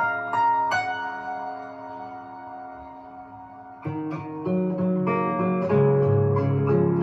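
An 18-string harp guitar, fingerpicked with a thumbpick. A few plucked melody notes lead into a chord that is left ringing and fading for about three seconds. The picking starts again about four seconds in, with deep bass strings sounding under the melody.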